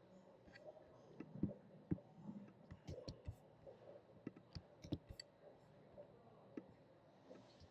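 Faint, irregular clicks of a computer mouse and keyboard while text is selected, copied and pasted between a web page and a spreadsheet.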